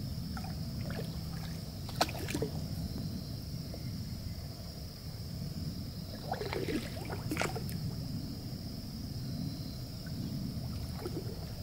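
Water sloshing and splashing around a person wading chest-deep through a farm dam. There is a sharp splash about 2 seconds in and a cluster of splashes around the middle.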